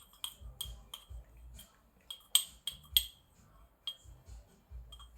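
Brewing utensils clinking and tapping together: a dozen or so sharp, briefly ringing clinks, the loudest a little over two and three seconds in, with dull knocks of handling under them.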